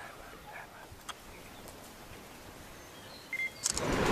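Quiet outdoor ambience with a few faint bird chirps and a single tick. Near the end a loud rushing noise suddenly comes in.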